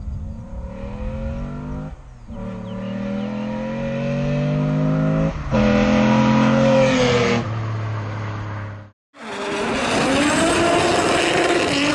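Swapped Toyota 1GZ-FE V12 with individual throttle bodies in a Toyota Corona, accelerating hard with rising pitch and shifting up twice, passing loudly about six seconds in, then a lower steady note as it moves off. After a brief cut near the end, another car's engine takes over.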